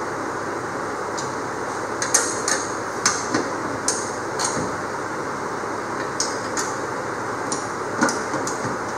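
About a dozen sharp, irregularly spaced metallic clicks and taps as hand tools and hardware are handled at an aluminum jon boat's transom, over a steady background hiss.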